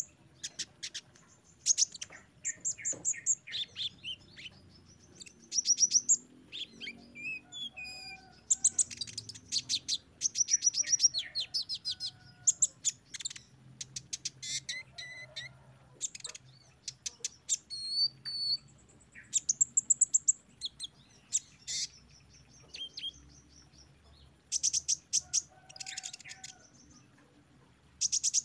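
Male sunbird (Indonesian konin) singing a long, varied song: fast high trills and rows of sharp repeated chirps, mixed with short whistled phrases and broken by brief pauses.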